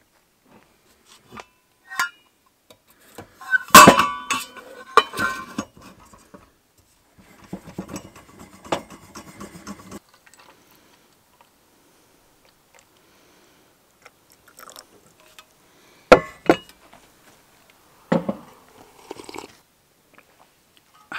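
Kitchenware being handled: scattered clinks and knocks of dishes and utensils. There is a loud clatter with some ringing about four seconds in, then a few seconds of rustling and scraping, a quiet spell, and a few more knocks near the end.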